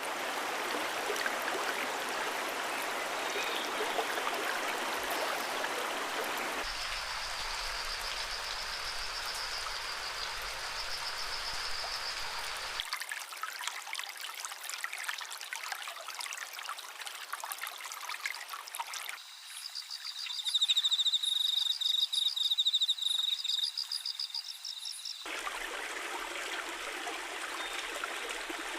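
Flowing stream water, in several short segments that switch abruptly about every six seconds. Two of the segments carry a high, rapid trill over the water, the louder one about two-thirds of the way in.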